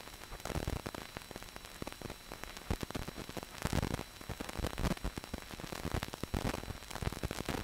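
Steady hiss and dense crackle of an old film soundtrack, with a faint hum under it.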